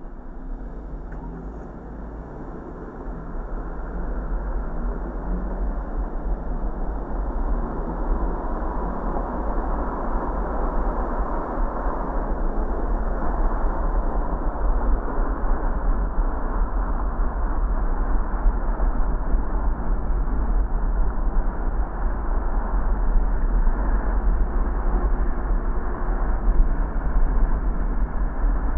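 A car driving: steady engine and road rumble, strongest in the low end, growing louder about three seconds in and then holding steady.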